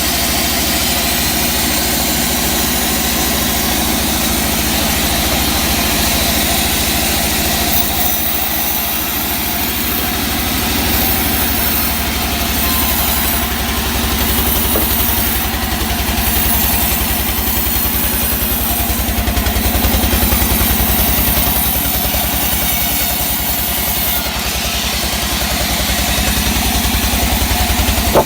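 Sawmill machinery running steadily, a low engine drone under a high hiss. The hiss brightens from about eight seconds in and drops back about sixteen seconds later, as the saw works through pine.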